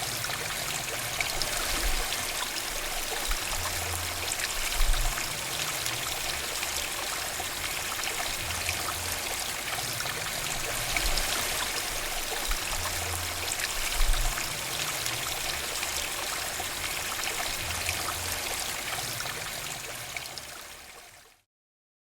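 Small mountain stream babbling and trickling steadily over rocks, with a few low bumps; it fades out near the end.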